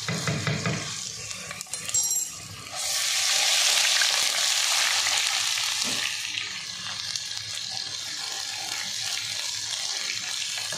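Ginger-garlic paste and cumin seeds sizzling in hot oil in a wok as they are stirred with a spatula. A few knocks come in the first two seconds, then the sizzle jumps loud about three seconds in and eases off after about six seconds.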